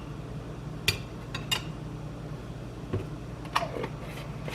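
A spoon clinking lightly against a crock pot about four times while coconut oil is spooned in, over a steady low hum.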